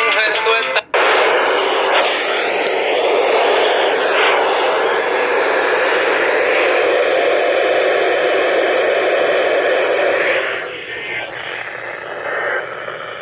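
Radio static: a loud, steady hiss from a radio receiver that cuts in sharply just under a second in, right after a voice breaks off, and drops somewhat in level about ten seconds in.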